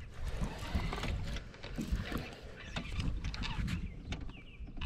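Irregular quick clicks and knocks from the baitcasting reel and tackle while a hooked saugeye is fought close to the boat, over a low wind rumble on the microphone.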